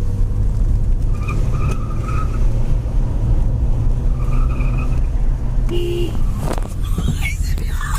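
Car driving along, with a loud steady low rumble of engine and road noise.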